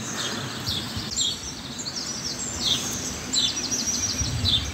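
Swallows calling overhead: many short high chirps and downward-sliding calls, with a quick run of clicking notes about three and a half seconds in, over a low steady background rumble.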